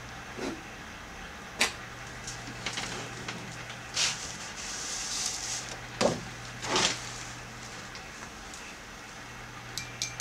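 Calligraphy pen scratching on paper in a few short strokes, then several knocks and rustles of handling, over a steady low hum.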